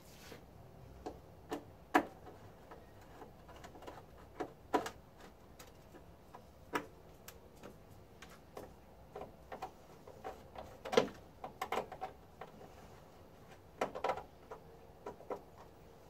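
Irregular light clicks and knocks of hands and a screwdriver working on the plastic casing of a variable frequency drive in a steel enclosure, with louder knocks about 2 seconds and 11 seconds in.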